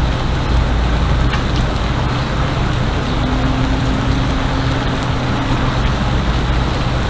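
Takoyaki batter sizzling on a hot griddle, a steady crackle over a low hum. A faint steady tone sounds for a few seconds midway.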